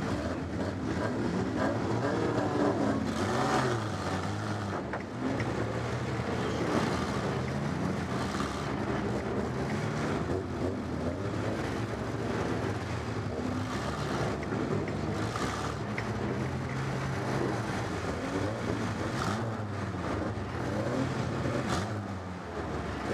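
Stock car engine running and revving up and down, heard from inside the car's cockpit, with other stock cars' engines close around it.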